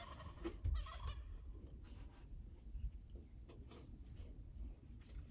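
Wild turkey gobbler gobbling, a rapid rattling call about a second in, followed by faint scattered ticks.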